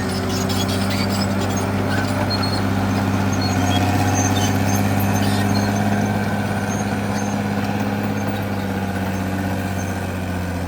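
CAT D6R XL bulldozer's diesel engine running at steady high revs, a constant drone that holds one pitch throughout.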